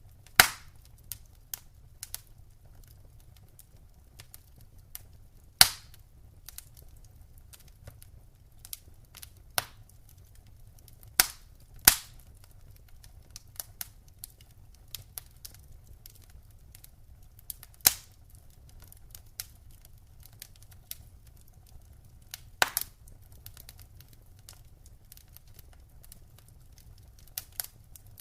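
Wood fire in a fireplace crackling: many small irregular ticks and half a dozen loud sharp pops spaced several seconds apart, over a faint low rumble of the flames.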